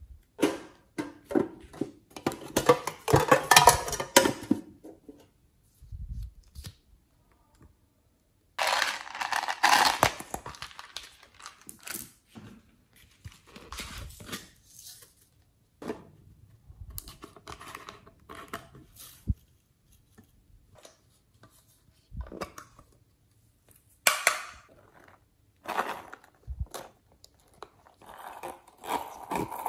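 Hands working sticky slime and soft clay: irregular bursts of wet crackling and squishing, mixed with sharp clicks, with short silences between the bursts.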